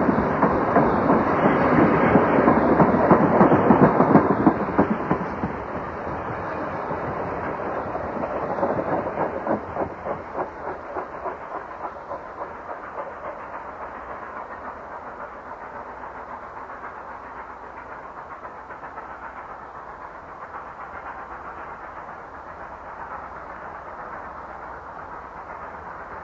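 Delaware & Hudson steam-hauled passenger train going by and drawing away: loud for the first few seconds, then a run of regular wheel clicks over rail joints about eight to twelve seconds in, settling into a quieter, steady rumble that slowly fades.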